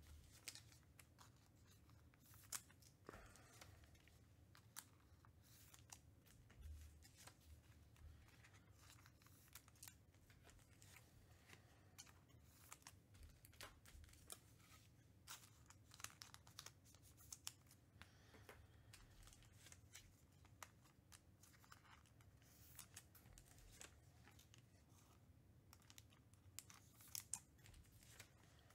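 Near silence, broken by faint, scattered clicks and short rustles, a few a little stronger near the end: trading cards and their packaging being handled.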